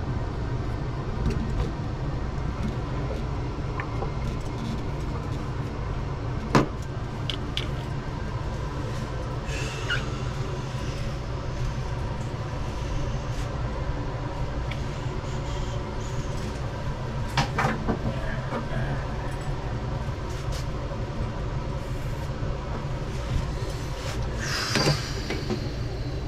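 A steady low mechanical hum, with a few sharp knocks and clicks from work on the fittings, the loudest about a third of the way in and more near the end.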